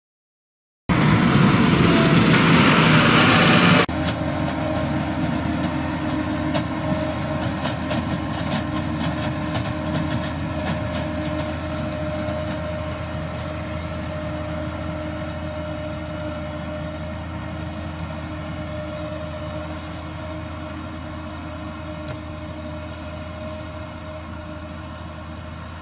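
ROPA Tiger 4 sugar beet harvester running in the field, a steady engine drone with a constant tone on top, slowly fading as it moves away. It is preceded by a loud, harsh noise of about three seconds that cuts off abruptly.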